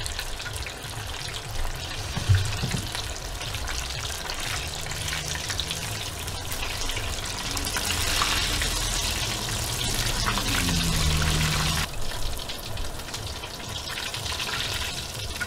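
Batter-coated potato vada deep-frying in a pot of hot oil, a steady bubbling sizzle. The sizzle grows louder about eight seconds in, while the patty is moved in the oil, then drops off suddenly about twelve seconds in.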